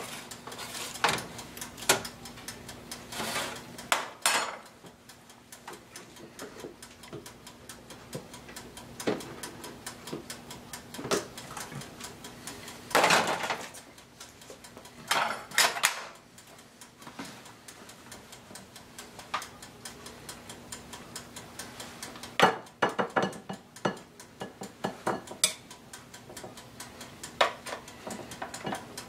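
Metal spoon scraping and clinking against a foil-lined baking pan, plates and a serving bowl in scattered strokes, as pan drippings are spooned over fish and asparagus is served. A faint steady ticking runs underneath.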